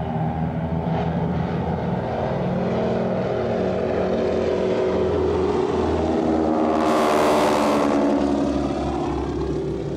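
Radial engines of two Boeing Stearman biplanes droning as they fly a display overhead, the pitch of the drone sliding up and down as they manoeuvre. A brief loud rush of noise comes about seven seconds in.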